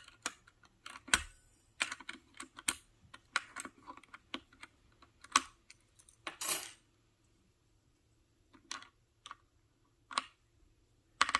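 Plastic keycaps clicking and tapping against a keyboard as they are pulled off and pressed onto the key switches: irregular clicks for the first several seconds, a lull, then a few more clicks and a quick cluster near the end.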